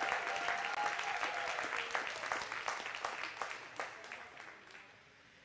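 Audience applauding after an announcement, the clapping thinning and dying away near the end, with a held cheer from one voice in the first two seconds.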